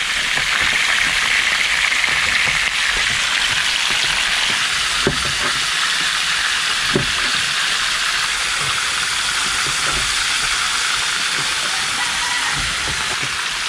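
Fish frying in a pan of hot cooking oil: a steady sizzle, with a couple of soft knocks midway.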